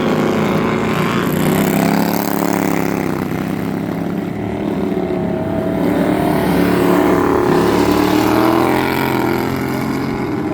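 Racing lawn mower engines running hard, their pitch rising and falling as they rev.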